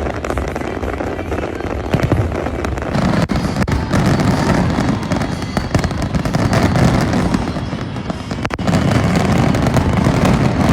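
Fireworks display going off in a dense, unbroken barrage of bursts and crackle.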